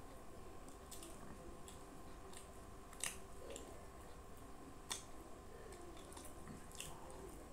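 Eating by hand: fingers mixing egg fried rice with curry give soft wet squishes and small sticky clicks, mixed with chewing. Two sharper clicks stand out, about three and five seconds in.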